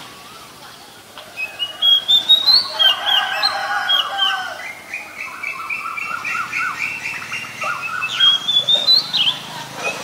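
Oriental magpie-robin singing. A varied run of clear whistled notes starts about a second in, then a quick series of short repeated notes, then more rising whistles near the end.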